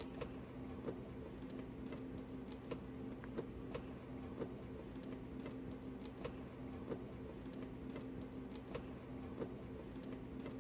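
Nutating mixer running with a steady low hum, a light tick a little under twice a second as it wobbles a Formlabs resin cartridge in its 3D-printed adapter tray.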